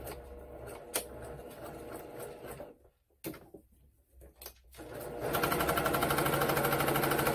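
Electric sewing machine stitching fabric. It runs, stops for about two seconds with a few small clicks, then starts again louder with a rapid, even stitching rhythm.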